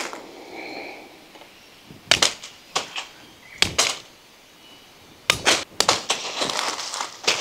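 Machete blade chopping and trimming a thin stick: sharp single strikes a second or so apart, a quick cluster of strikes a little past the middle, then crackling rustle of leaves and twigs near the end.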